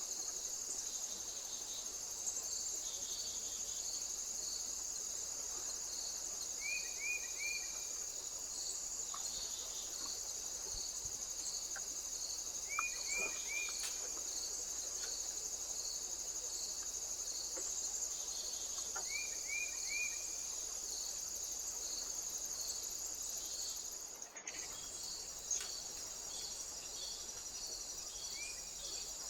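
Crickets chirring steadily, with a second insect pulsing about twice a second. Four times a small bird gives a quick group of three high chirps.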